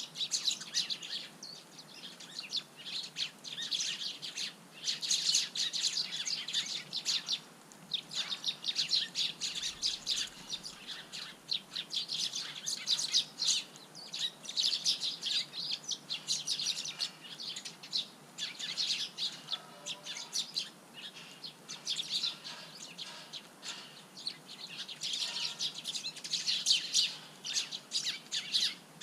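Eurasian tree sparrows chirping, many short chirps tumbling over one another in quick, busy chatter, with brief lulls.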